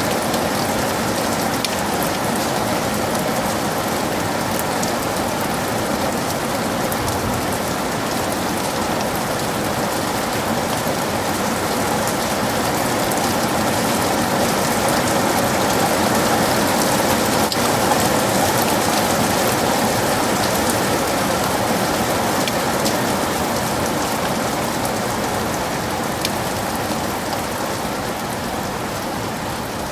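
Heavy rain falling steadily, a dense hiss of drops on surfaces with many fine pattering impacts, swelling slightly midway and easing a little near the end.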